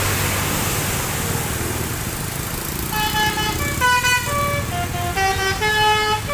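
A bus's Basuri telolet horn with a DAV module playing a tune of held notes that step up and down in pitch, starting about halfway through. It sounds over a steady low rumble of engine and traffic.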